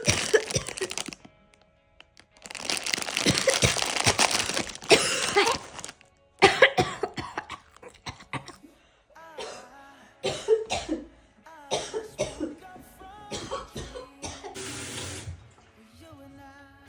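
A woman coughing in repeated harsh fits over background music.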